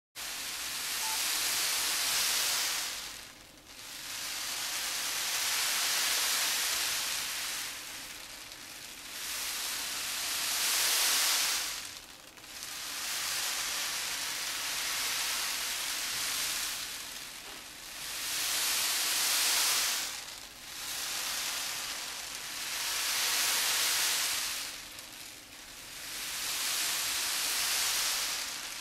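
Azuki beans rolled back and forth in a tray, the classical Japanese sound effect for waves on a shore. A hissing rush swells and fades about seven times, roughly once every four seconds.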